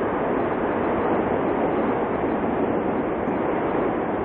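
Mount Etna's lava fountain erupting: a loud, steady rushing noise with no separate blasts.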